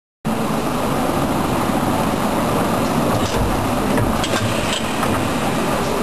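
Perfume filling and crimping machinery running: a steady mechanical noise with a low rumble and scattered sharp clicks from about halfway through. The sound cuts in abruptly just after the start.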